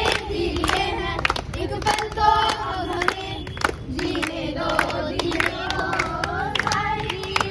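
A group of children singing together while clapping their hands in a steady rhythm.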